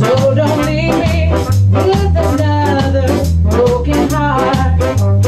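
Ska band playing a rocksteady-tempo song: a steady bass line and regular offbeat chops under a wavering lead melody line.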